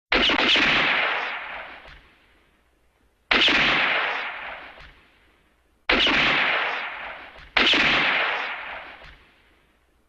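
Spaghetti western pistol gunshot sound effect, fired four times, each shot followed by a long echoing tail that fades over about two seconds; the last two shots come closer together.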